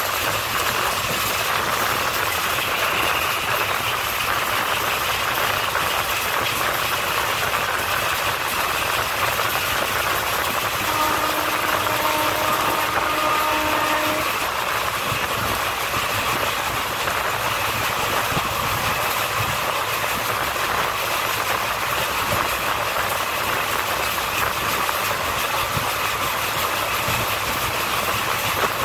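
Passenger train running along the track, heard from an open coach door: a steady rush of wind mixed with wheel-on-rail noise. About eleven seconds in, a steady pitched tone sounds for about three seconds.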